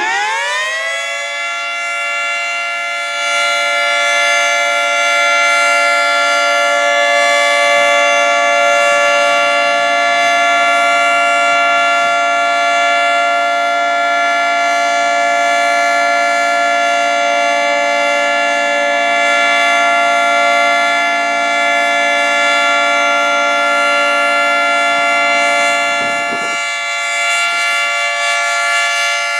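Federal Signal 2T22 dual-tone outdoor warning siren on test, finishing its wind-up in the first second and then holding a loud, steady two-tone chord.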